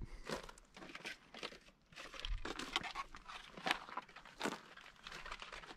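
Footsteps crunching and scuffing on dry, gravelly desert dirt, an irregular run of short crunches.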